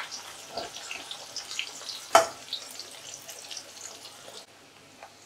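Sliced onion frying on high flame in hot mustard oil in a kadhai, a steady sizzle with scattered crackles. A single sharp metallic clink comes about two seconds in, and the sizzle goes quieter about four and a half seconds in.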